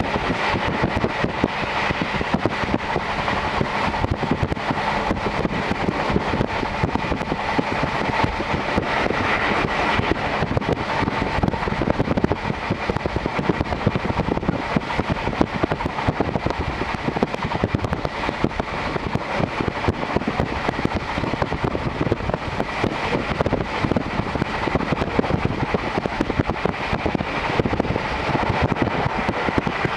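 Series 711 electric train running at speed, heard from inside a passenger car with the window open: a steady, loud rush of wheel-on-rail and wind noise.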